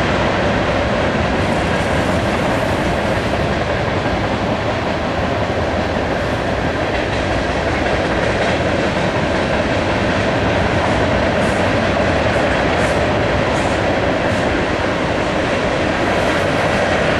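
Freight train cars, boxcars and tank cars, rolling past on steel rails: a steady rumble and rattle of wheels on the track.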